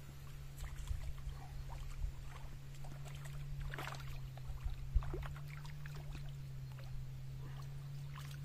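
Light splashing and sloshing of water with scattered small knocks and rustles, the sharpest a brief knock about five seconds in, over a steady low hum.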